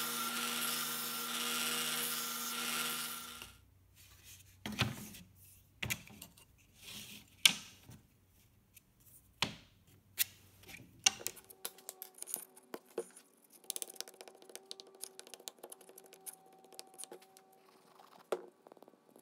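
Stationary belt sander running with a steady hum while a small piece of wood is held against the belt; it stops about three and a half seconds in. After that come scattered taps, clicks and knocks of small wooden pieces being handled on a wooden workbench.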